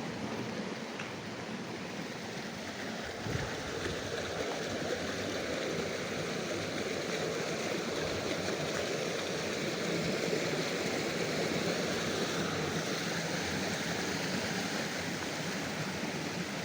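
River water flowing over rocks, a steady rushing.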